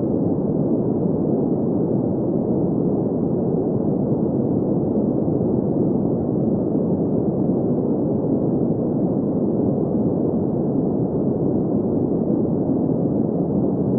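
Green noise: a steady, unbroken mid-pitched hiss, fullest in the middle range with little bass and nothing high, like a soft rushing.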